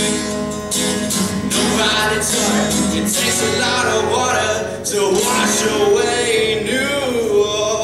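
Male voice singing over a strummed acoustic guitar, holding long, wavering notes in the second half.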